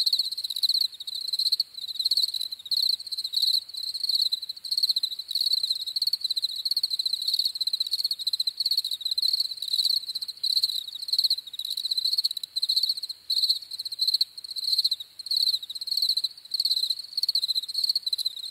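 European field crickets chirping in a meadow at night: several insects stridulating together in a continuous run of short, high chirps.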